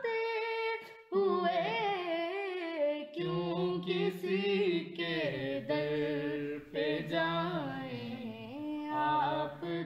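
Background vocal music: a voice singing a slow, wavering melody, with a brief break about a second in and a lower sustained part joining from about three seconds in.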